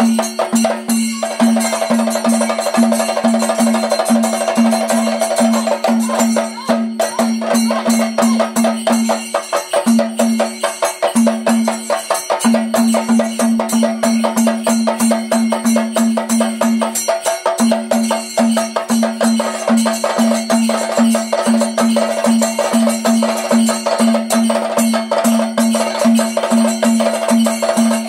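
Chenda drums beaten with sticks in a fast, unbroken rhythm, with a low pulsing note repeating several times a second underneath.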